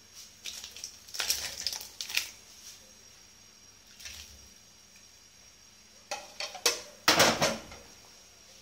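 Metal ladle stirring soup in an aluminium pot: knocks and scrapes against the pot with splashing as soup is lifted and poured back, in two bouts, about a second in and again about six seconds in.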